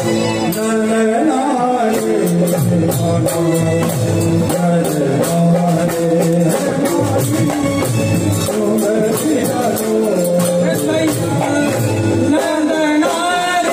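Live Gujarati raas kirtan, devotional folk music amplified through a PA: a man singing over an electronic keyboard melody, dholak and drums, with a quick, steady beat.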